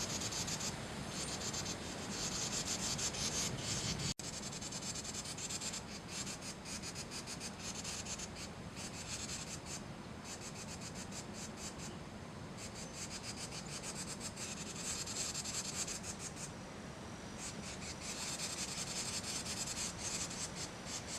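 Carolina wren giving its harsh, raspy alarm chatter, a rapid buzzy rattle that comes in stronger bursts several times over.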